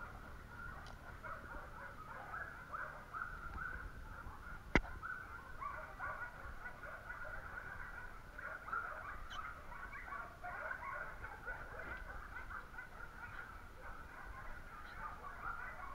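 A continuous chorus of many distant bird calls. A single sharp click comes about five seconds in.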